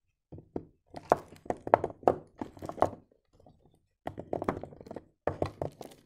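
Bars of soap knocking and clacking against each other as they are handled and set down in a heap: quick clusters of short knocks with a brief pause around the middle.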